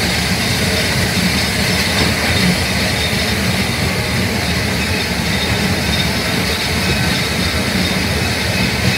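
Steady rumble of a Shay-hauled passenger train running along the track, heard from an open car.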